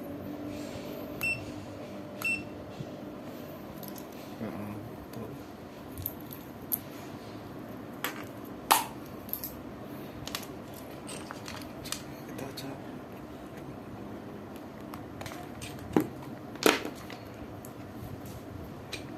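Scattered sharp clicks and light knocks of small hard objects being handled, the strongest about nine seconds in and near the end, over a steady low hum.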